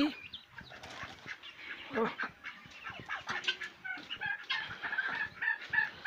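Chickens clucking and calling in a poultry shed, with a run of short, repeated high calls in the second half.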